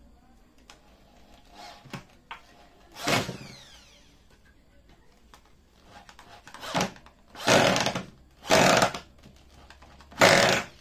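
Power drill boring into rubberwood, run in short bursts on the trigger. One burst about three seconds in winds down with a falling whine, then four short bursts come close together in the second half.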